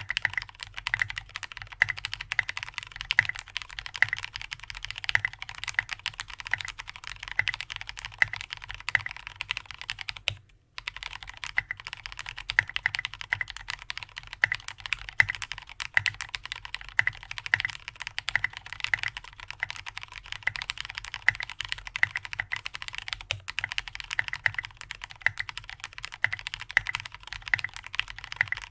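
Continuous fast typing on an aluminium-plate custom keyboard with lubed linear Cherry MX Black switches (65 g springs) and SA-profile keycaps, a dense run of keystroke clacks with a short break about ten seconds in.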